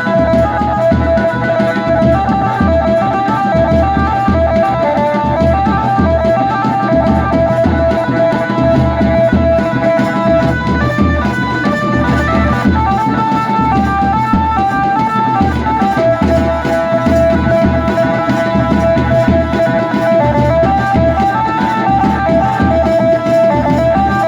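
Adivasi wedding band music: a lead instrument playing a repeating high melody over a steady, continuous drum beat.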